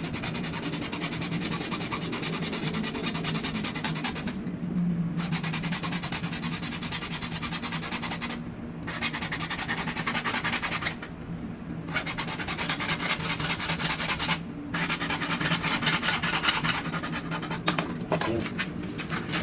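A bare hacksaw blade, held in the hand, sawing back and forth through white PPR plastic water pipe in quick, steady strokes, with four brief pauses.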